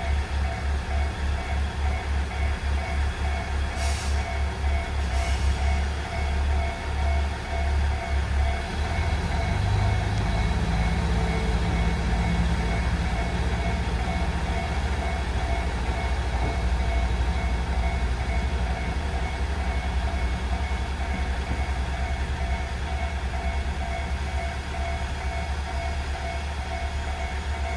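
Koumi Line diesel railcar engine running at a station platform, first with an even low throb. About eight and a half seconds in, the engine note changes and steadies. Two short hisses come at about four and five seconds in.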